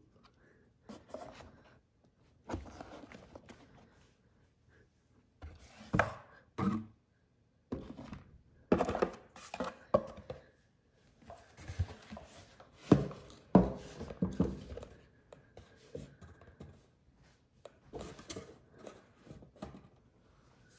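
Cardboard shipping box being handled by hand: flaps folded back and rustled, and a boxed item slid out and set down, with irregular scrapes and dull knocks that come and go.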